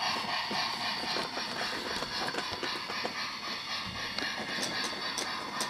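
Battery-powered Brio toy train running on wooden track: a steady small-motor whir with scattered light clicks, and a quick run of sharper clicks near the end.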